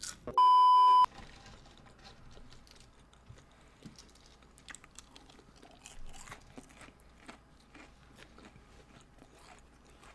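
Close-up chewing and crunching of crispy fried food, with scattered crackles and bites. Just under half a second in, a loud steady beep tone lasts about 0.7 s and cuts off suddenly.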